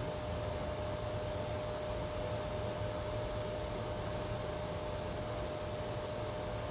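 Steady background hiss with a single constant tone running through it: room tone.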